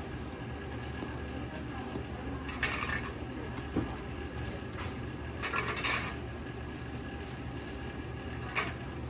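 Stainless steel hotteok presses clinking and clattering on a steel griddle as they are lifted off the pressed pancakes, three times: about two and a half seconds in, around six seconds, and just before the end. A steady low hum runs underneath.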